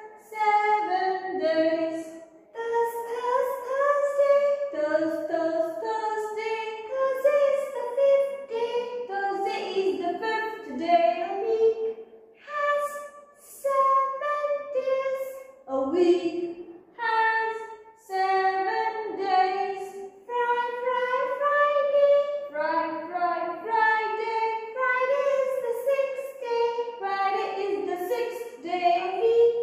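A high voice singing a children's song, with held notes that step up and down in a simple melody.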